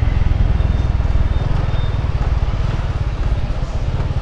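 Honda Biz motorcycle's single-cylinder four-stroke engine running with a steady low pulsing, getting slightly quieter as the bike slows.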